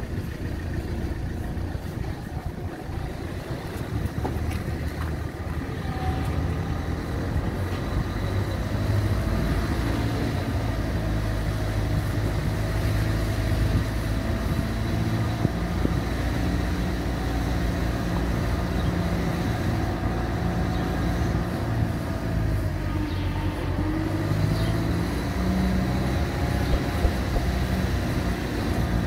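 A car's engine running at low speed with tyre and road noise, heard from inside the car. A faint whine rises and falls with the speed.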